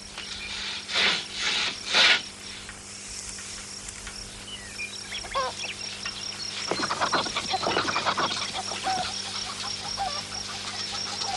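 Farmyard fowl honking and calling, busiest in the second half, over a steady fast, high chirping. Near the start there are two loud noisy bursts about a second apart.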